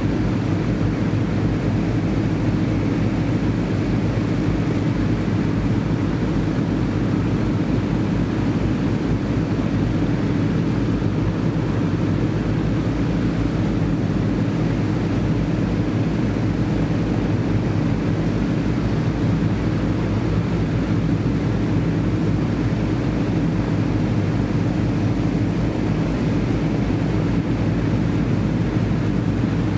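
Avro Shackleton Mk3's Rolls-Royce Griffon V12 piston engines running steadily together on a ground run, their contra-rotating propellers turning: a loud, even, low drone.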